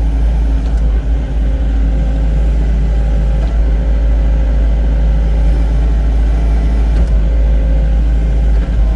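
Excavator's diesel engine running steadily at working speed, a continuous low drone, as the machine drags soil toward itself during grading.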